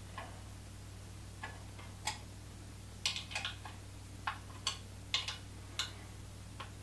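Irregular short clicks and taps of a hand tool tightening the bottle-cage bolts that hold an e-bike battery mounting plate to a bicycle frame, over a steady low hum.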